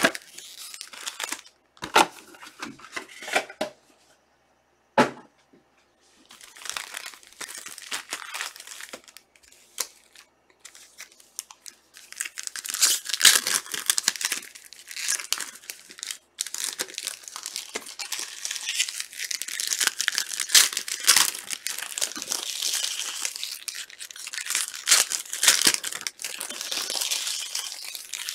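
Trading-card pack wrappers being torn open and crinkled by hand, in irregular bursts of ripping and crackling with a few sharp clicks. It is sparser in the first few seconds and busier and louder from about halfway on.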